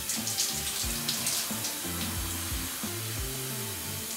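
Shower water spraying and splashing while hair is rinsed, over background music with a bass line.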